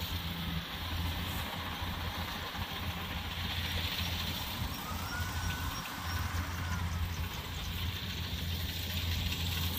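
Kubota rice combine harvester running steadily as it cuts through the crop, its diesel engine giving a continuous low hum under a wide, even machine noise.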